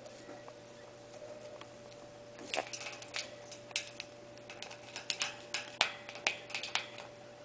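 Young Congo African grey parrot making a run of sharp, irregular clicks, starting about two and a half seconds in, some louder than others, over a faint steady hum.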